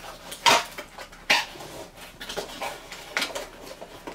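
Cardboard product box being opened by hand: a few short scrapes and rustles of card sliding against card, the loudest two near the start and fainter ones after.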